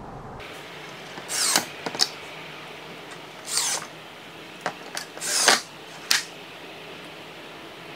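Cordless drill-driver driving wood screws through a folding-leg bracket into a wooden table apron, in three short bursts about two seconds apart, with a few sharp clicks between them.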